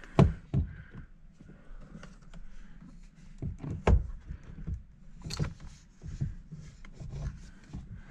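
A steering wheel being handled and worked onto its column while wiring is fed through: rubbing and rustling with a few sharp knocks, the loudest just after the start and near four seconds in.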